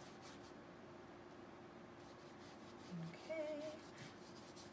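Faint strokes of a paintbrush rubbing paint onto a canvas, over a steady low hum. About three seconds in, a brief hummed voice sound from a woman.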